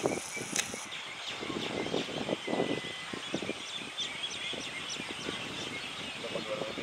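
Crowded colony of water birds calling all at once: a dense, overlapping chorus of many short calls.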